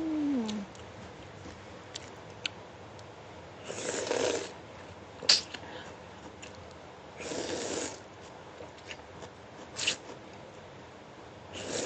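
Rice noodles being slurped in three short bursts a few seconds apart, with a few sharp clicks between them.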